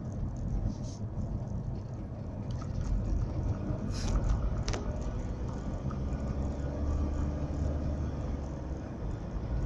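Steady low engine and road rumble inside a moving car's cabin, with two short knocks at about four seconds in.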